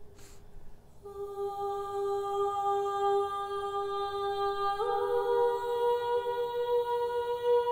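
A group of voices humming a slow chant in long held notes. The sound breaks off briefly, comes back about a second in, and steps up to a higher note about five seconds in.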